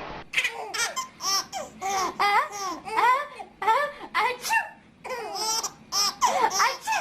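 A baby laughing in quick repeated bursts of giggles, with a short break about five seconds in.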